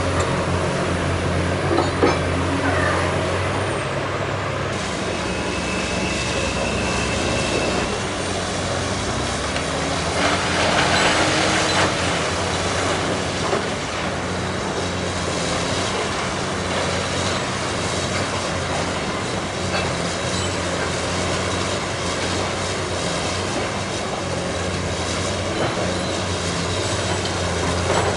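Heavy diesel demolition machinery running steadily with a low drone. A few knocks come near the start, and a burst of hiss comes about ten seconds in.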